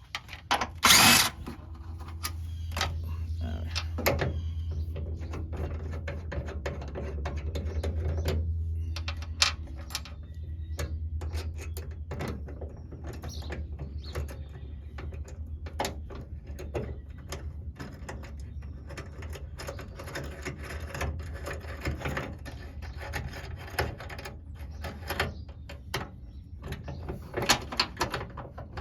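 Hand tools clicking and knocking against metal while bolts on the hood strut brackets are worked, with a loud clatter about a second in and a steady low hum underneath.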